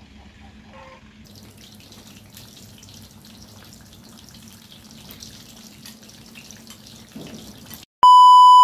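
Faint steady hum and hiss, then about eight seconds in a loud test-card beep: a steady 1 kHz reference tone lasting under a second that starts and cuts off sharply.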